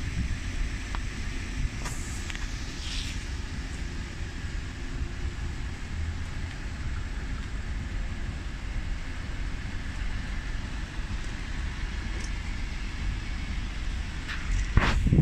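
Steady low rumble of outdoor background noise, with a short louder swell near the end.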